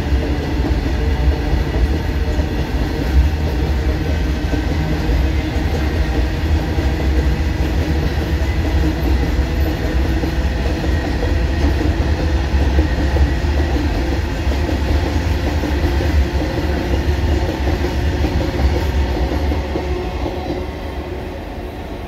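A freight train's open box wagons rolling past close by, with a steady heavy rumble and clatter of wheels on the rails. The sound fades over the last few seconds as the end of the train goes by.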